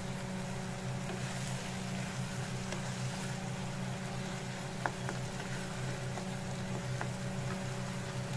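Tomato chutney simmering and sizzling in a non-stick frying pan as it cooks down until the oil separates: a steady hiss over a steady low hum. There are a few light taps of a wooden spatula against the pan near the middle.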